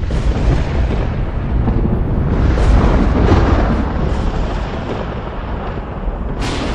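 Thunder: a continuous deep rumble, broken by sharp cracks at the very start, a few around three seconds in, and another near the end.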